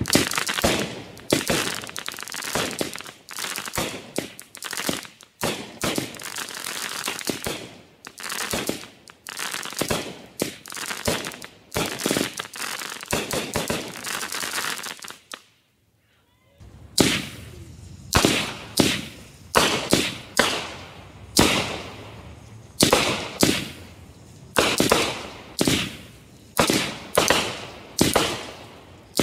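Consumer aerial firework cakes going off. First the Breaker Megabanger cake fires a rapid string of loud reports and crackling. After about a second of silence, the Plum Crazy cake fires shots about once a second, each a sharp report.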